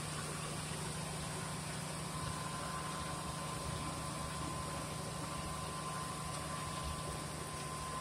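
Steady running hum of machinery in a small sugarcane crushing plant, with a thin, steady high whine above it that grows stronger about two seconds in.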